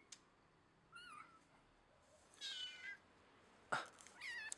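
A kitten meowing three times in short, high calls, the middle one the longest. A sharp knock comes just before the last meow.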